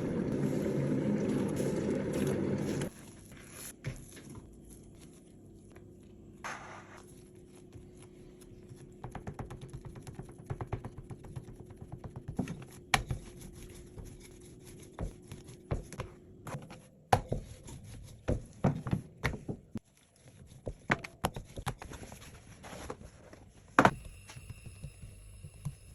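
Kitchen handling sounds: a loud steady rushing noise that cuts off about three seconds in, then scattered taps, knocks and scrapes, with a few sharper clacks in the second half.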